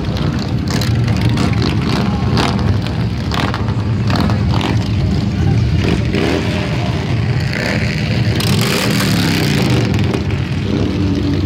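A stream of big V-twin cruiser and touring motorcycles rumbling past at parade pace, engines rising and falling in pitch as riders roll on and off the throttle.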